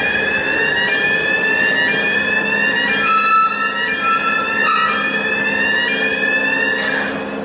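Ferry car-deck warning alarm sounding as the deck machinery moves for departure: a rising electronic sweep repeats about once a second over a steady tone. Beneath it is the steady hum of the ship's machinery. The alarm cuts off near the end.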